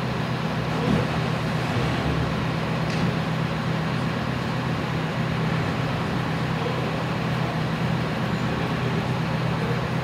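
Steady traffic noise: a continuous low hum under an even wash of road noise, unchanging throughout.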